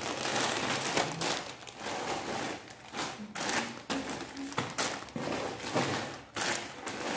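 Clear plastic bags crinkling and rustling as plastic-wrapped bundles are handled and packed into a cardboard box, with occasional knocks.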